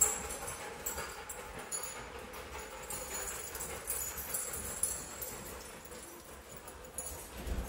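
Several dogs' claws clicking on a polished concrete floor as they move about, with metal collar tags jingling. A low thump near the end.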